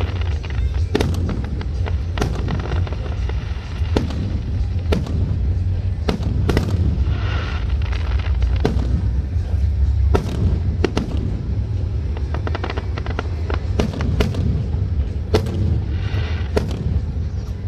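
Fireworks display: sharp bangs of bursting shells, about one or two a second, over a continuous low rumble.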